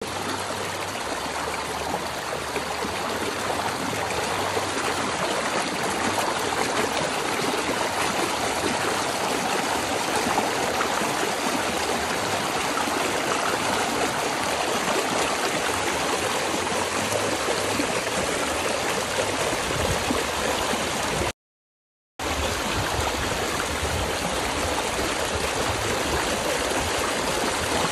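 Shallow river water rushing and splashing steadily as legs kick in it. The sound cuts out completely for a moment about three-quarters of the way through.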